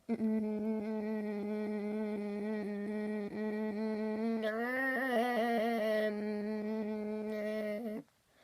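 A person holding a steady hummed vocal tone while tapping on the throat, which chops the tone into a fast pulsing flutter about four beats a second. The pitch rises slightly and wavers around the middle, and the tone cuts off suddenly near the end.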